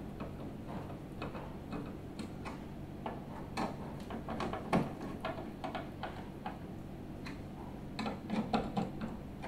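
Irregular small clicks and ticks of a hand screwdriver turning screws into the wall-mount bracket on the back of a flat-screen TV.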